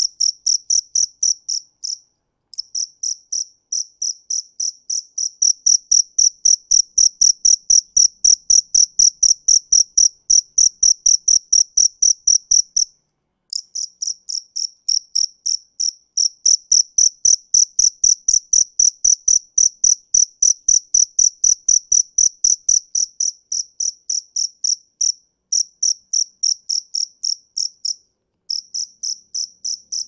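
Field cricket chirping by rubbing its raised wings: a long run of loud, high-pitched chirps at about three to four a second, broken by a few short pauses.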